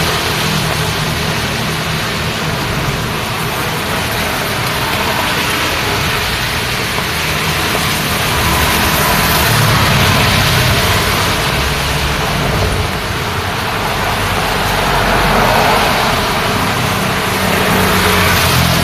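Road traffic in the rain: vehicle engines and tyres hissing on a wet road over a steady wash of rain, with vehicles swelling past about halfway through and again near the end.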